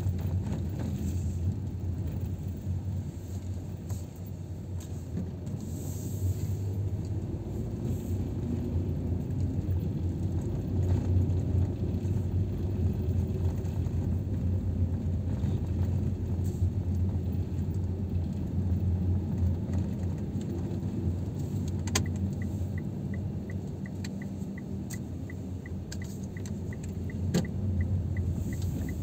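Car cabin noise from a slowly moving car: a steady low engine and road rumble. In the last several seconds a light, even ticking joins in, about three ticks a second.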